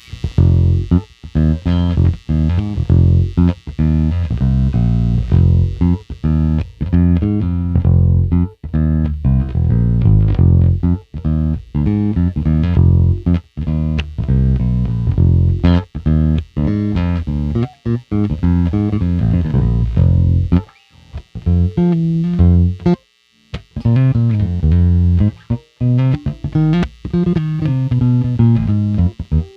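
Squier Classic Vibe 50's Precision Bass played solo through a Fender Rumble 100 bass amp, a run of plucked notes and lines with brief pauses about 21 and 23 seconds in.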